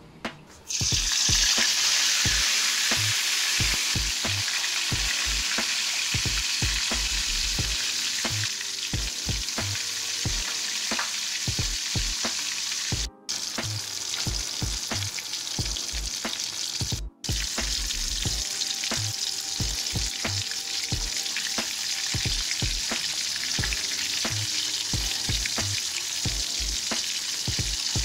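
Pieces of boiled duck deep-frying in hot oil in a wok: a loud, steady sizzle with crackling pops. It starts abruptly about a second in and briefly cuts out twice.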